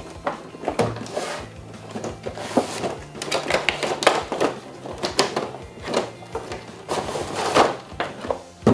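Cardboard figure box and clear plastic blister packaging being handled: scraping, crinkling and knocking as the inner tray is slid out and the plastic lid is pulled off, with one sharp knock near the end. Background music underneath.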